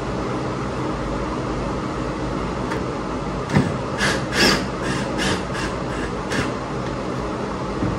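Steady hum of a fan. About three and a half seconds in comes a knock, then a string of short bursts about a third of a second apart for some three seconds, from a cordless drill driving the platform's mounting screws.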